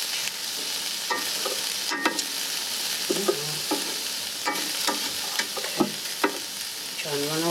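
Shrimp sizzling on the hot grill grate of a Ninja Foodi Grill as they are turned over with tongs, with frequent clicks and taps of the tongs against the grate and pot.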